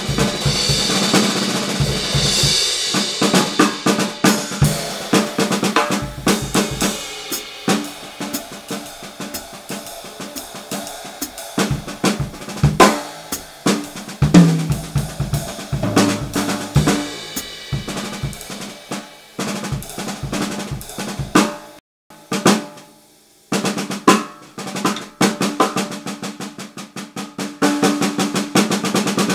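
Acoustic drum kit played freely: fast snare strokes and rolls over bass drum, with hi-hat and cymbals ringing near the start. The playing stops briefly about three-quarters of the way through, then picks up again.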